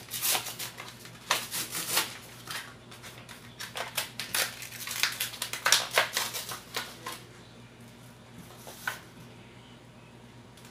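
Foil trading-card booster pack crinkling and tearing as it is opened by hand, a run of sharp crackles that stops about seven seconds in.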